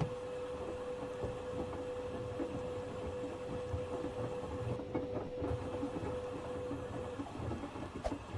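Beko Slim 7 kg washing machine running hard, its drum rumbling and clattering with irregular knocks. A steady whine runs through it and stops about seven seconds in.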